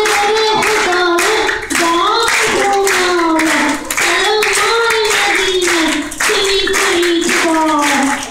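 A boy singing solo into a microphone in sustained, wavering melodic phrases, with short breaks between phrases every two seconds or so. Steady rhythmic hand-clapping keeps time with the song.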